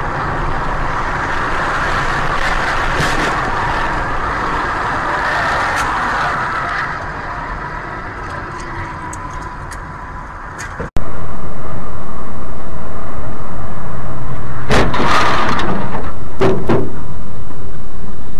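Vehicle road and wind noise as picked up by a dashcam microphone at highway speed: a steady rush with a faint steady tone, slowly fading. About two-thirds of the way in it cuts abruptly to a much louder, steady rush, with a few sharp bangs near the end.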